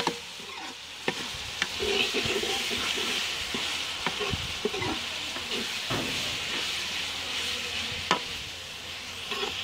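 Onion, tomato and green-chilli masala frying in ghee in a metal karahi, sizzling steadily while a metal spatula stirs and scrapes through it, with sharp clinks of the spatula against the pan several times. The masala is starting to stick to the bottom of the pan.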